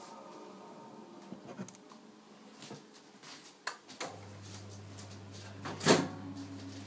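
A few light clicks, then a microwave oven starts running about four seconds in with a steady low hum; a single louder knock comes about two seconds later.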